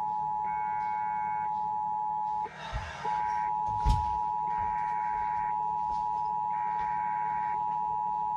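Emergency Alert System attention signal: a steady two-tone beep held just under 1 kHz, with about one-second bursts of warbling digital data tones roughly every two seconds layered over it. The attention tone drops out briefly about two and a half seconds in, and there is a sharp click about a second later.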